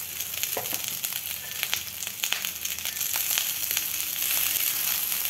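Hot oil and sautéed vegetables sizzling in a metal wok as cooked rice is tipped in: a steady hiss with many sharp crackles.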